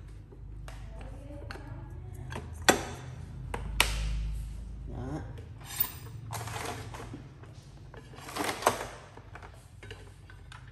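Sharp plastic clicks and knocks from a Mitsubishi rice cooker being handled: its hinged lid is shut and latched and the cooker is shifted about, with a louder cluster of clatter near the end.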